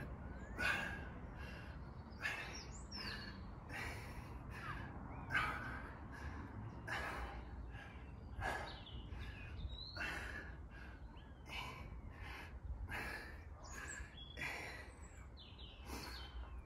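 Steady, hard breathing of a man working through barbell bent-over rows, quick even breaths a little more than one a second, with a few bird chirps in the background.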